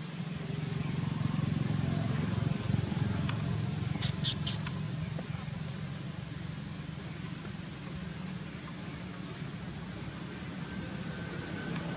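Low, steady hum of a motor vehicle's engine, loudest in the first few seconds and then easing off. A quick run of about four sharp clicks comes about four seconds in, and a few faint high chirps are heard.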